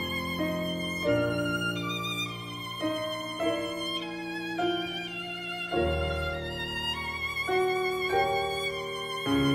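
Violin music: a slow melody played with vibrato over held lower accompanying notes.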